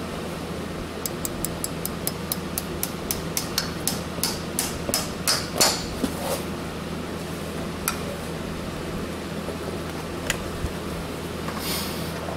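Farrier's driving hammer striking a horseshoe nail into the hoof wall: a run of quick light taps, about four a second, growing louder into a few harder blows, then single taps a couple of seconds apart.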